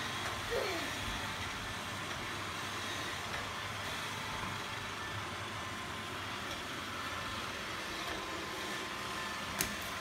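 iRobot Roomba 871 robot vacuum running steadily across a hard tiled floor, its suction motor and brushes making an even whirring noise. A single sharp click near the end.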